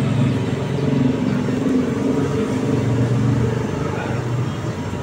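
A motor vehicle engine running close by: a low, steady rumble that swells during the first half and eases off toward the end.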